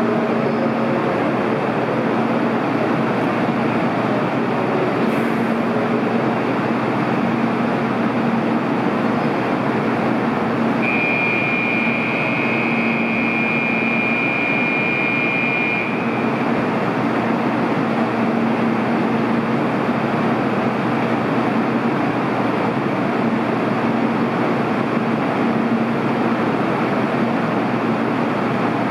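Steady noise of an 800 series Shinkansen train standing at a station platform, with a low hum that comes and goes. A high steady tone sounds for about five seconds near the middle.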